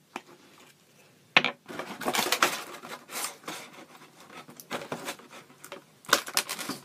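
Clear plastic toy packaging and pieces handled by hand: irregular light clattering and clicking, with one sharp click about a second and a half in and a busier run of clicks near the end.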